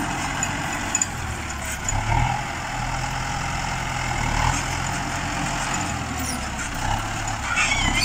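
Farm tractor's diesel engine running steadily under load while the tractor pulls a disc harrow through the soil, with small shifts in engine pitch.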